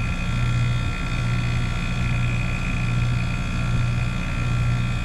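A rooftop-style package air-conditioning unit running, its compressor and condenser fan making a steady hum with a faint high tone above it.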